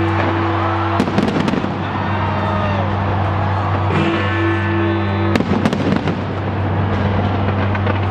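Fireworks going off, with sharp bangs about a second in and again a little after five seconds, over music with sustained low notes.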